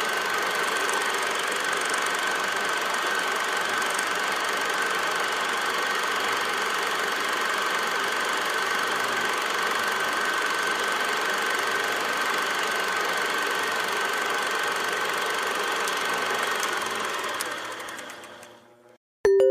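A steady mechanical running noise, like a motor or engine, with a constant high whine; it fades out near the end. Just before the end, a ringing musical tone starts.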